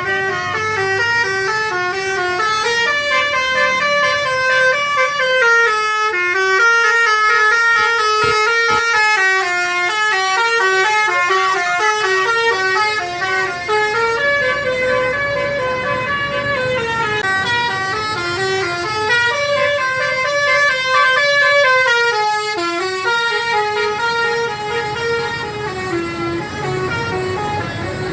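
Bus 'telolet' musical horn playing a melody: several tones at once step up and down in pitch in a repeating tune, sounding without a break.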